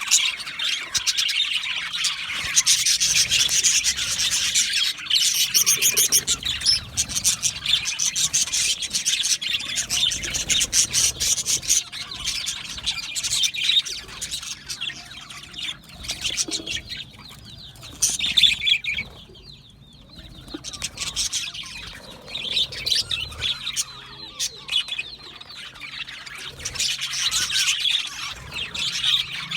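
A flock of budgerigars chirping and chattering together, with many overlapping high chirps and warbles; the chatter thins briefly a little past the middle.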